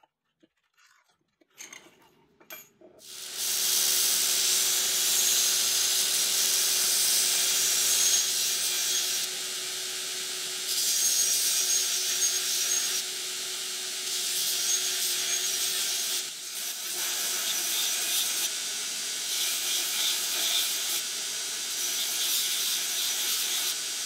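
Grinder working the steel of a forged axe head: a steady hiss of abrasive on steel, starting about three seconds in after a few faint ticks. A motor hum runs under it for the first several seconds, and the level steps up and down a few times.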